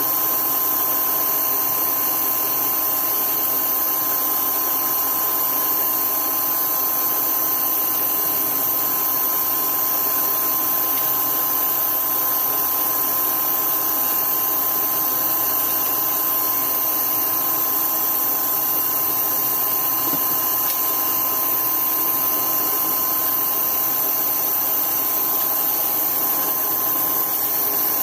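An electric power tool's motor running steadily, a constant whine that neither rises nor falls.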